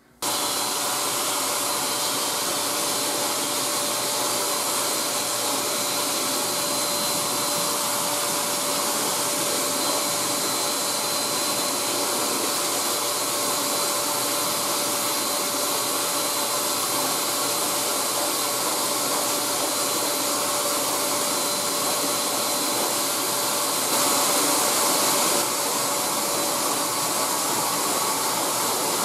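Pet grooming dryer blowing through a hose and nozzle, switched on right at the start and then running steadily: a loud rush of air with a thin high whine, briefly a little louder near the end.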